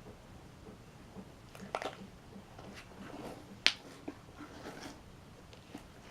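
Slime being squeezed and worked by hand: scattered soft wet squelches and small clicks, with one sharp pop about three and a half seconds in.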